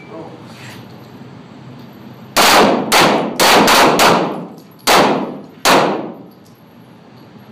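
Handgun shots from several shooters at once: about seven sharp reports in a ragged string over some three seconds, beginning a little over two seconds in, each followed by a short echo in the indoor range.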